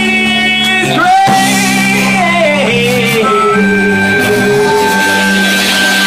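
Live rock band playing, with electric guitar and bass under a singer's long held, wordless vocal that slides down in pitch about halfway through.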